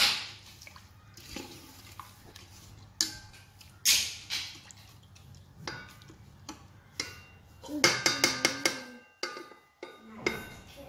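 A spoon stirring rice, prawns and water in a rice cooker's inner pot: wet sloshing and scraping with scattered knocks against the pot, and a quick run of clinks about eight seconds in.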